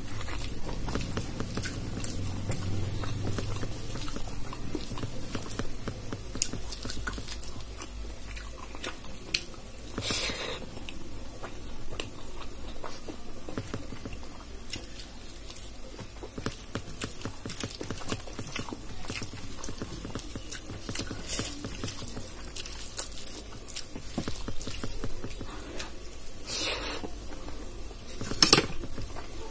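Close-up eating sounds of a person chewing a mouthful of rice and dal, with many small wet mouth clicks and smacks and a few louder noisy sounds about a third of the way in and twice near the end.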